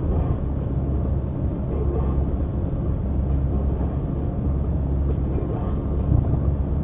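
Steady low rumble of a car's engine and tyres on the road, heard inside the cabin of the moving car through a dashcam microphone.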